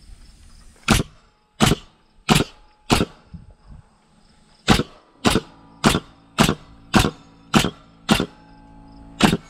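Pneumatic framing nailer firing nails into a rough-sawn wooden beam, each shot a sharp crack. Four shots go off at an even pace, then after a short pause nine more follow in a steady run of about two a second.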